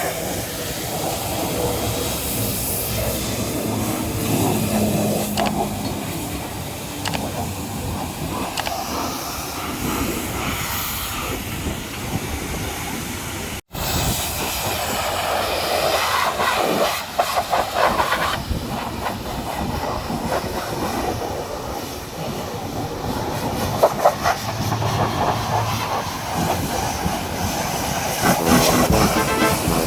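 High-pressure washer jet spraying water against a muddy truck, a steady loud hiss and spatter that changes in tone as the jet moves over different surfaces, cutting out for a split second about fourteen seconds in.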